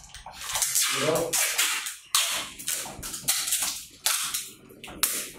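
Adhesive tape being pulled off a roll in about six quick, rasping pulls, each starting sharply, as thumbs are taped closed against the hands.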